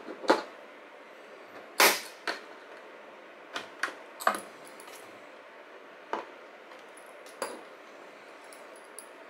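Sharp clicks and clacks of small plastic parts and a screw being worked out of an external hard drive's plastic enclosure and set down on a tabletop. There are about nine separate knocks, the loudest about two seconds in.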